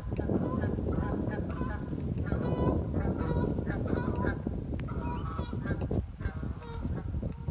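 Geese honking repeatedly in short calls over a steady low rumble that eases off near the end.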